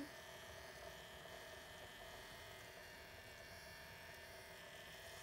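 Faint, steady hum of the KidzLabs Tornado Maker's small battery-powered motor spinning its propeller in the water bottle.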